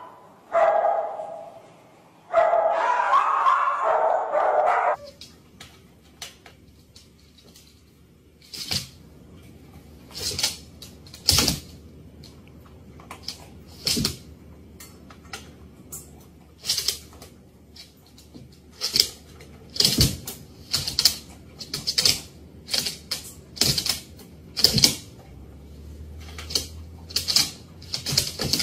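Dogs: a drawn-out vocalization for the first few seconds, then, after a short pause, a long irregular run of short, sharp barks, at times about two a second.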